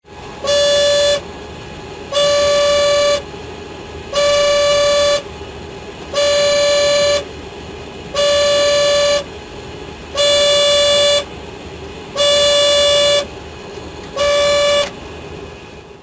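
Cockpit take-off abort warning alarm: a single loud, even tone sounds eight times, about once every two seconds and about a second each time, over a steady low background noise.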